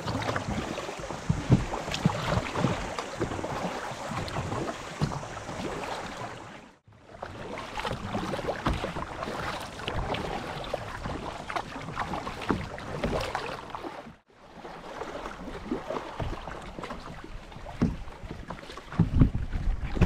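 Kayak paddle strokes splashing in the water, an irregular wash of splashes and drips, in three stretches broken by two short gaps.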